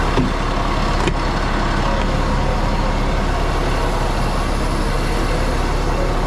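Fire truck's diesel engine running steadily, a continuous low hum, with a couple of light knocks in the first second or so.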